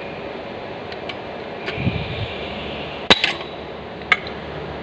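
Hand rivet tool being squeezed to pull a blind (pop) rivet through two metal plates: a few light clicks as the jaws grip and draw the mandrel, then a loud sharp snap about three seconds in as the mandrel breaks off, the sign that the rivet has been pulled tight and locked. Another sharp click follows about a second later, over a steady background hum.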